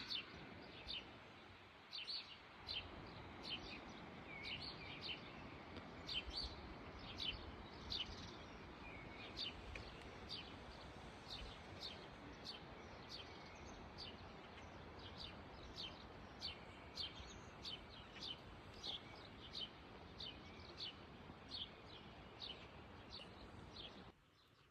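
Songbird chirping over and over, short high chirps about twice a second, over the steady rush of a small stream flowing over stones. Both drop away abruptly just before the end.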